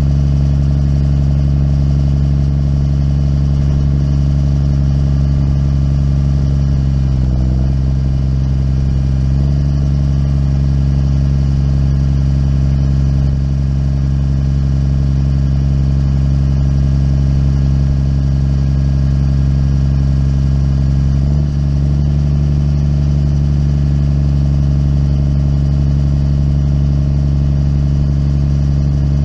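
Muck cart's engine running steadily while the machine stands still. Its speed dips briefly about seven seconds in and picks back up a couple of seconds later, and there is a short break in the sound about twenty-one seconds in.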